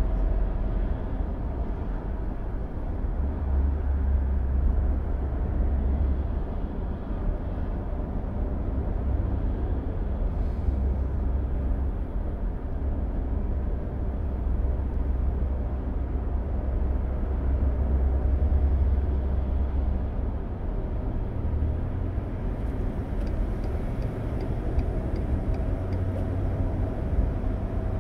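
Steady highway road noise heard inside a car's cabin: a low rumble of tyres and engine at cruising speed. Near the end, a faint ticking of the turn signal runs for a few seconds.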